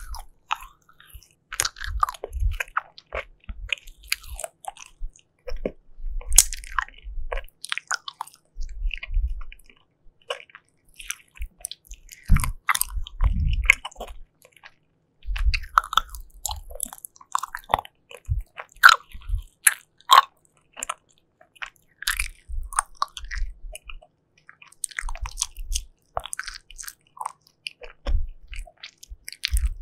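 Close-miked biting and chewing of sugary jelly candy, in irregular bites and chews with occasional deeper thuds.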